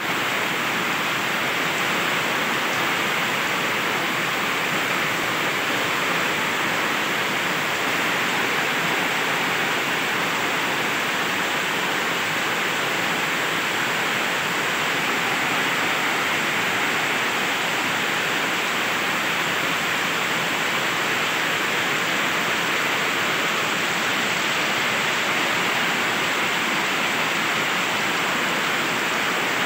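Heavy tropical downpour: rain pouring down steadily as a constant, even hiss with no let-up.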